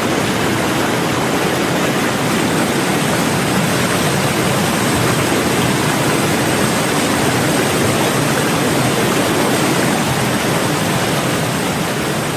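Steady, loud rushing noise with no distinct events, with a faint, thin, high steady whine running through it.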